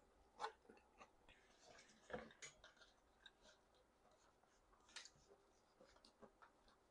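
Faint chewing and mouth noises of someone eating noodles: a handful of soft clicks and smacks a few seconds apart over near silence.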